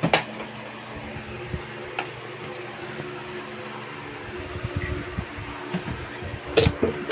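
Knocks and taps of a handheld karaoke microphone being handled and bumped against a tiled floor, over a steady hum. The loudest knocks come in a short cluster near the end.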